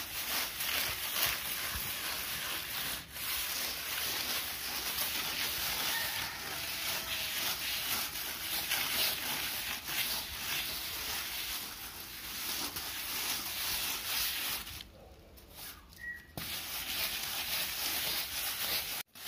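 Hand float rubbing over fresh sand-cement plaster in repeated strokes, a continuous rough scraping as the render is floated smooth. It stops briefly about three-quarters of the way through.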